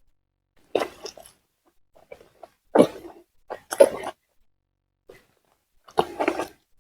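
A person coughing and huffing in several short, harsh bursts a second or two apart, the kind of coughing fit that eating raw green bird's-eye chilies brings on.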